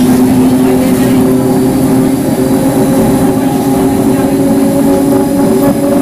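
CPTM Série 1700 electric multiple unit standing at the platform, its motor equipment running with a loud, steady hum made of several held tones over a low rumble.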